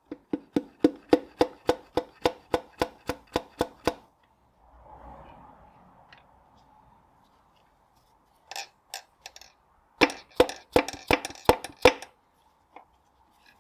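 Hammer blows driving a connecting rod and piston up and out of the bore of a Land Rover 2.25 petrol engine block. About a dozen sharp ringing taps come in a quick run, then a pause with a few lighter taps. Another fast run of about eight blows follows.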